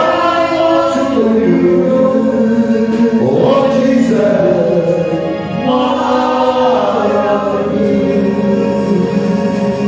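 Gospel music with choir singing: sustained chords that swell upward about every three seconds.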